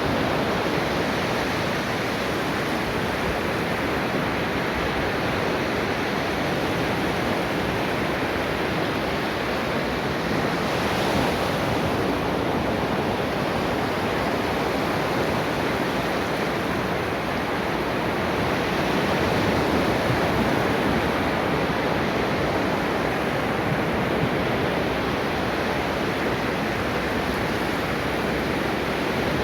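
Ocean waves washing onto a shore in a steady wash of surf, swelling gently a little after ten seconds in and again near twenty seconds.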